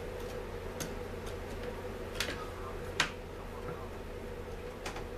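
Scattered clicks and taps as hands work on the parts of a Stihl MS 250 chainsaw, with one sharper knock about three seconds in, over a steady low hum.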